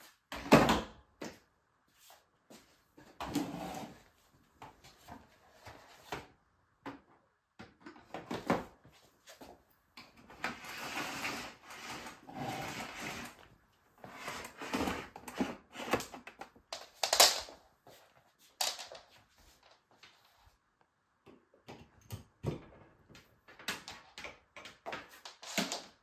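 Irregular knocks, clicks and rustles of a canister vacuum cleaner being handled and set up while its motor is off. The loudest is a sharp knock about half a second in.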